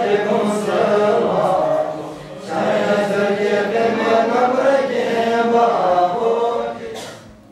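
Tibetan Buddhist monks chanting a liturgy together in a steady, droning voice. The chant dips briefly about two seconds in and fades out near the end.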